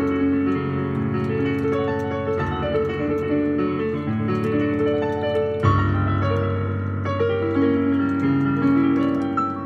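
Digital piano being played: a melody moving over held bass chords, with a new bass chord struck about two and a half seconds in and again about five and a half seconds in.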